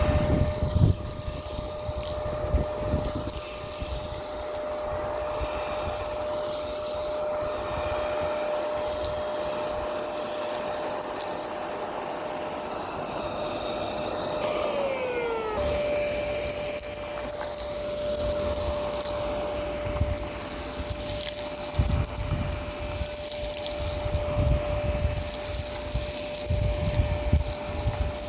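Miele Complete C2 Tango Ecoline canister vacuum running with a steady motor whine while it sucks up grit and debris from a street surface, which gives frequent crunchy crackles and knocks. About halfway through the whine briefly drops in pitch, then returns.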